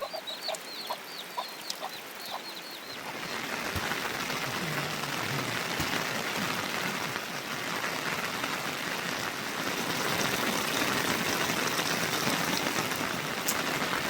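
Chickens clucking in a quick run of short calls, then heavy rain comes up about three seconds in as a steady, dense hiss that covers everything else.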